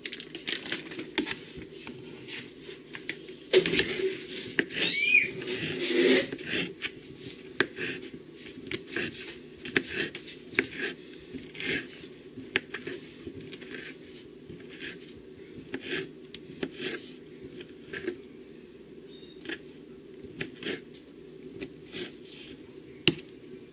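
Kitchen knife slicing turkey sausage into rounds on a wooden cutting board: repeated light taps of the blade on the board, about one or two a second, over a steady low hum.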